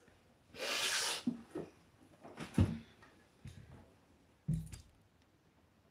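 Handling noise from a phone or camera being carried against clothing: a brief rustle of fabric on the microphone about half a second in, then a few soft knocks and bumps.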